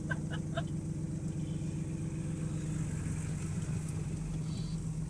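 Vehicle engine running steadily, heard from inside the cab, its note shifting about three seconds in. A few faint light clicks in the first half second.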